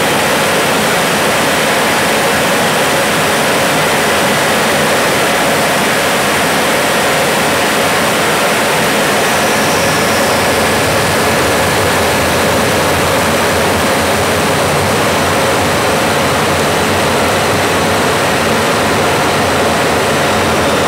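Jet engine and airflow noise inside a jet's cockpit: a steady, loud rushing hiss with faint, steady high whines riding on it.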